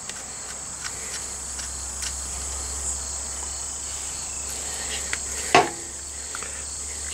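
Light clicks and taps of a motorcycle rear brake caliper and its bolt being handled by hand, with one sharper knock about five and a half seconds in. Underneath is a steady high-pitched drone and a low hum.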